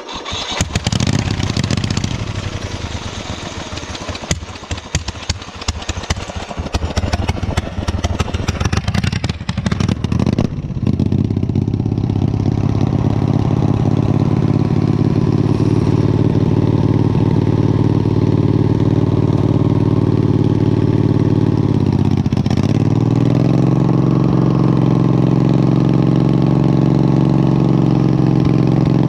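Wheel Horse garden tractor's engine: about ten seconds of loud rattling clatter, then the engine settles into a steady run. The revs dip briefly and recover about two-thirds of the way through.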